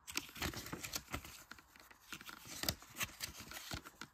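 Paper inserts being handled: soft rustling with scattered small clicks and taps.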